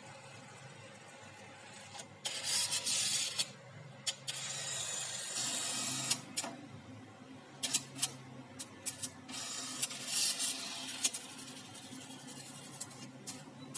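HP printer mechanism running in three short whirring, hissing stretches, with scattered clicks in between.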